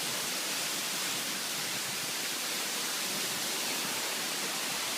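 Waterfall splashing down, a steady even rush of falling water.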